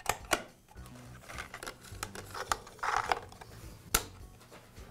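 Light clicks, taps and scraping of a steel hex key and the plastic recoil starter housing as the starter is screwed back onto a small two-stroke blower engine. The sharpest click comes about four seconds in.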